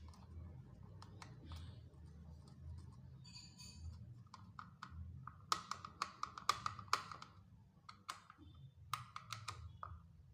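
A series of light clicks and taps of small hard objects being handled, bunched in quick clusters about halfway through and again near the end, over a low steady hum.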